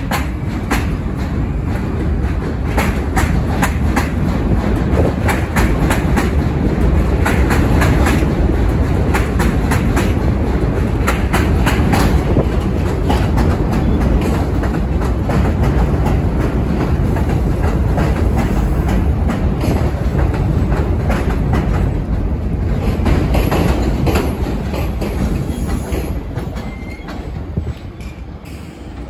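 New York City Subway R62A train rolling past the platform, its wheels clicking over the rail joints above a steady rumble. The sound eases off over the last few seconds.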